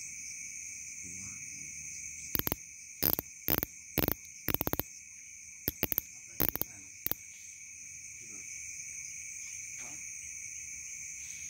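Night insect chorus, crickets trilling steadily at two high pitches. About two seconds in it is broken by a run of about ten loud, rasping bursts lasting some five seconds.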